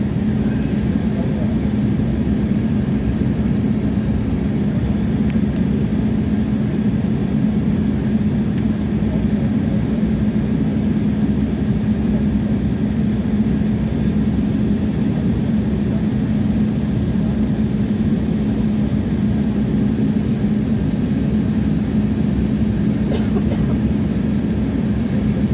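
Steady jet airliner cabin noise in flight: the turbofan engines and rushing air give an even drone with a constant low hum.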